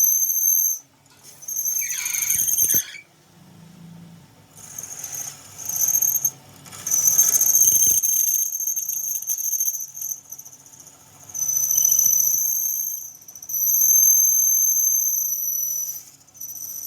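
High-pitched metal screech from a tool working the metal wheel hub, in repeated passes of one to three seconds with short breaks between them.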